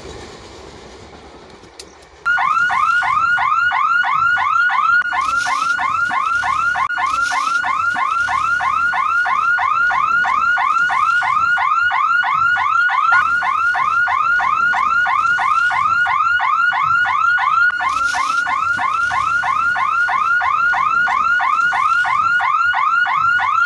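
A passing train's rumble fades out, and about two seconds in a railway level-crossing electronic warning hooter starts. It gives a loud, rapidly repeating electronic chirp, about three a second, steady in pitch and level, which warns that the crossing gate is operating.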